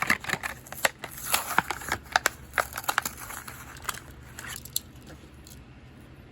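Plastic blister and cardboard backing of a Hot Wheels package crackling and crinkling as it is torn open: a quick, irregular run of sharp crackles that dies away about five seconds in.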